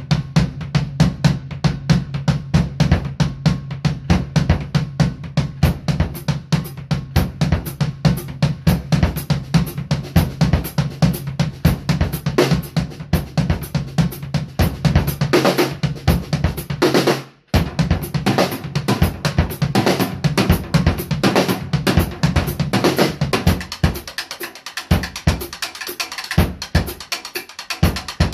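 Acoustic drum kit played solo: fast, steady strokes on bass drum, snare and toms with cymbal, breaking off for a moment about seventeen seconds in, then carrying on with sparser low hits toward the end.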